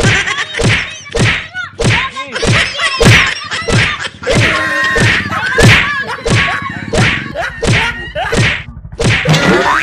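A rapid series of loud slap and whack hits, about two to three a second, with short swooping tones among them. These are most likely punch-and-slap fight sound effects laid over a scuffle.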